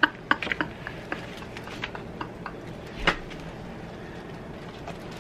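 A woman laughing hard: quick breathy bursts of laughter that fade out over the first second or two, with one sharp burst about three seconds in.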